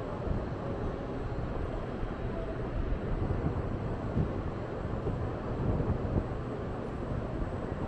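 Steady low rumbling background noise on a railway station platform, with some wind buffeting the microphone.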